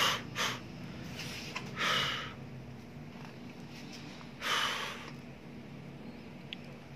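A man breathing hard from exercise: two short breaths at the start, then two longer breaths, about two seconds and about four and a half seconds in. A steady low hum from an electric fan runs underneath.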